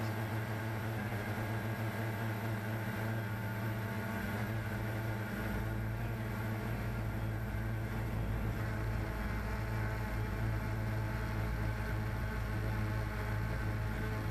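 CX-20 quadcopter's electric motors and propellers in flight, a steady buzz with a low rumble joining about five seconds in.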